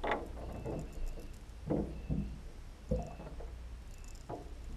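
Muffled sounds picked up by a GoPro camera submerged in a tub of water: a steady low hum, with about half a dozen short, muffled knocks spread across it.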